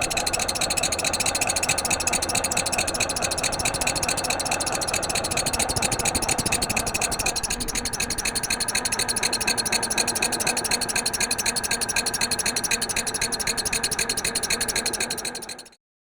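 A motor running steadily with a fast, even pulsing; its tone shifts about halfway through, and it fades out near the end.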